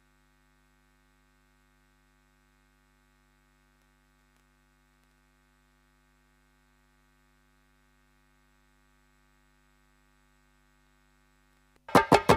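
Faint, steady electrical hum made of several steady tones. Near the end, loud rhythmic drum strokes break in, about four a second, with a deep thump under each.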